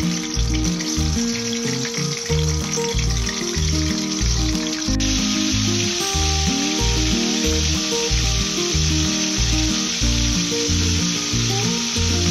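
Pieces of salted stingray deep-frying in hot oil in a wok, a steady sizzle that grows louder about five seconds in as more pieces go into the oil. Background music with a steady beat plays under it.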